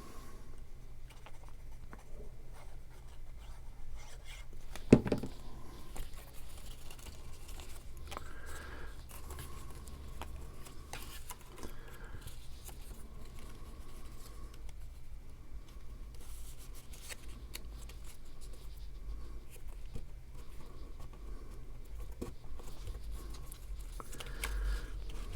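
Paper and cardstock being handled, with light rustles, scrapes and taps as card pieces are fitted together, and one sharp knock about five seconds in.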